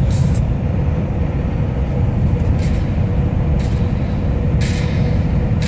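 Scania R440 truck heard from inside the cab while driving on the highway: a steady low engine and road rumble, broken by a few short bursts of hiss, the longest near the end.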